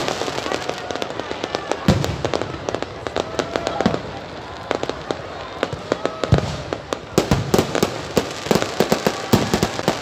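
Aerial fireworks display: a dense, continuous crackling of bursting stars, with several deep booms of shells going off.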